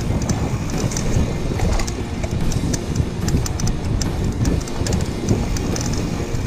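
Wind buffeting the action camera's microphone over the rolling rumble of mountain bike tyres on a dirt trail, with scattered light ticks and rattles from the bike.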